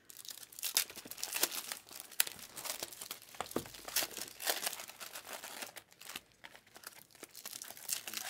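Trading cards and their packaging being handled on a table: irregular crinkly rustles and light clicks, with one sharper click about two seconds in.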